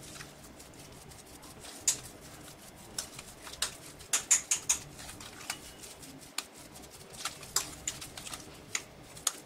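A hand squishing and kneading a mash of leftover rice and grated boiled potato in a glass bowl. Irregular soft clicks and taps come as the fingers knock the glass, most of them about four to five seconds in.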